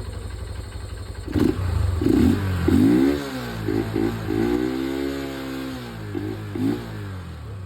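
Honda GLH150 motorcycle's single-cylinder four-stroke engine idling, then revved with throttle blips. About a second and a half in come three quick revs, then a longer rev held high for a couple of seconds, two short blips, and it settles back to idle.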